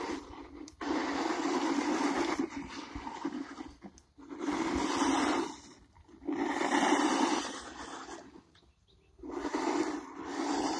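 Hart 20-volt battery RC truck driving on a dirt road: its electric motor and tyres on the loose dirt come in four bursts of a second or two each, with quieter gaps between.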